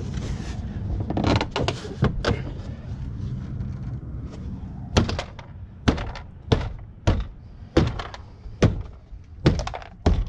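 Ford Transit plastic door trim panel being pressed and struck by hand to snap its clips into the door. A scuffle of plastic and a few knocks come first, then from about halfway a run of about ten sharp thunks, roughly one every two-thirds of a second.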